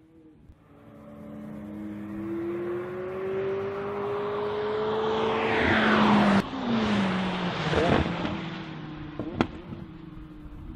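McLaren 675LT's twin-turbocharged V8 accelerating hard toward the track edge and passing by: its note climbs steadily and grows louder, peaks about six seconds in, then drops in pitch and fades as the car goes away. A single sharp crack comes near the end.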